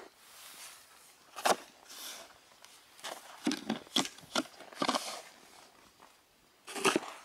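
Snow shovel digging into deep fresh snow: a series of short, irregular scoops and scrapes, several in quick succession around the middle, mixed with footsteps in the snow.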